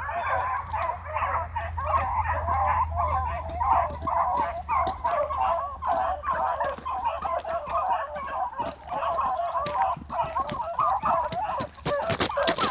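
A pack of beagles baying together in full cry while running a trail, many overlapping wavering voices in a steady chorus. A few sharp clicks come near the end.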